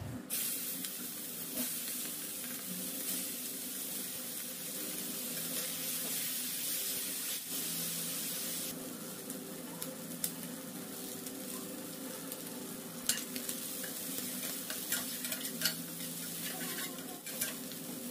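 Prawns sizzling as they fry in hot oil in a stainless steel frying pan, the sizzle easing a little about halfway through. From then on a spatula clicks and scrapes against the pan as they are stirred, over a steady low hum.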